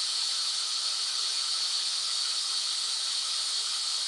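White noise: a steady, even hiss, strongest in the high range, with no change throughout.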